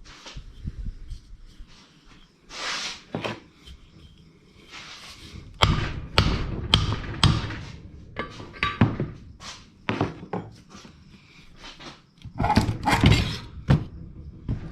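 Old electric water pump being worked apart by hand: a run of knocks and metal clanks as a part inside is loosened, with a denser cluster of clanks near the end.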